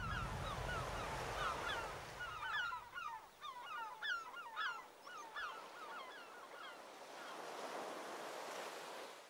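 A flock of seabirds calling, many short chirping calls overlapping, over a steady hiss of surf and wind. The calls thin out after about five seconds, leaving the surf hiss, which then cuts off suddenly at the end.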